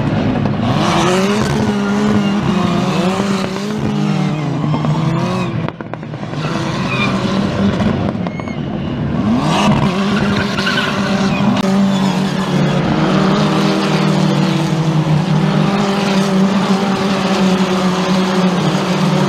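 A pack of Ford MSA Formula single-seater race cars passing one after another on track, engines revving and changing gear, their notes overlapping and stepping up and down in pitch.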